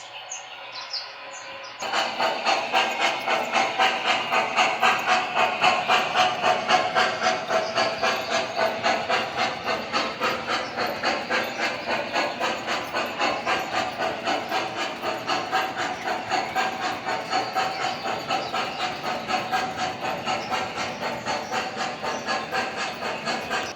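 Model steam locomotive running on its track with a rapid, even steam chuff and hiss that keeps up without a break. The chuffing comes in suddenly about two seconds in.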